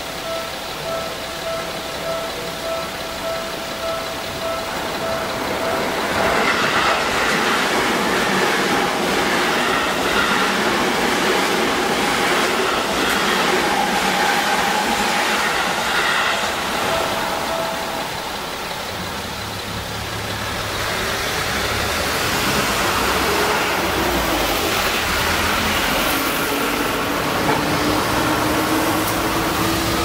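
Japanese level-crossing warning bell ringing in repeating dings while a Seibu 6000 series electric train runs over the crossing from about six seconds in, with loud wheel and rail noise. The bell stops a little after halfway. Cars then pull away over the crossing, one engine rising in pitch near the end.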